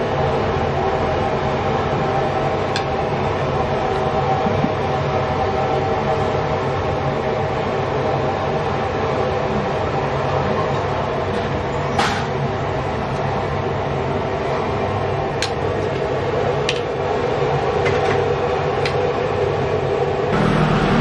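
A steady mechanical drone with several held tones in it, running evenly throughout, with a few light sharp clicks scattered through, one louder about halfway.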